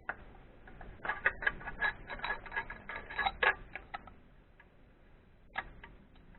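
A run of sharp, light clicks, about four a second, for some three seconds, then a single click near the end: hand-tool work under the bonnet of a BMW E36's M43 engine during a spark-plug change.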